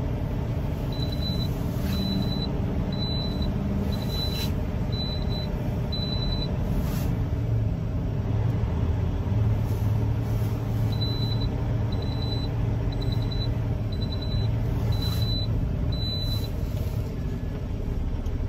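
Semi truck's engine running steadily, with a reversing alarm beeping about once a second in two runs of six beeps.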